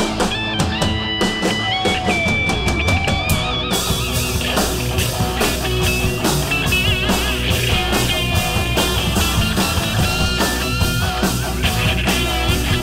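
Rock band playing an instrumental section: an electric guitar lead with bent, wavering held notes over drums and rhythm guitar.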